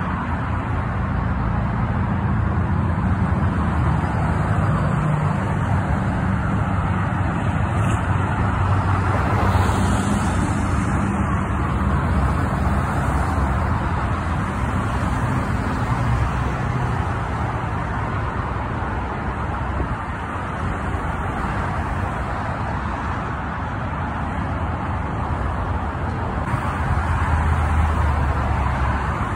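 Steady multi-lane highway traffic: cars, vans and trucks going past with engine rumble and tyre noise. Near the end the low rumble swells as a box truck passes close by.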